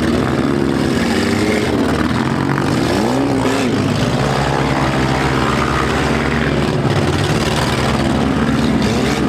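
Several compact-car engines running and revving at once in a demolition derby heat, their pitches rising and falling over each other.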